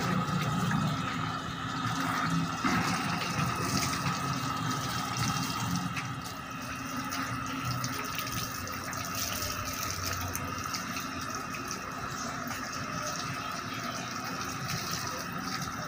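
Water running from a hose and splashing onto a motorcycle and the wet paving, a steady rush.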